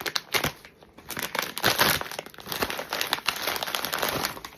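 Crinkly blind-box packaging being handled and opened by hand, with irregular crackling and a brief lull about a second in.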